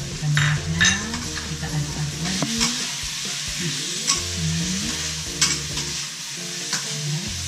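Vegetables sizzling in a hot wok while a spatula stirs them, scraping against the pan about six times, roughly once a second.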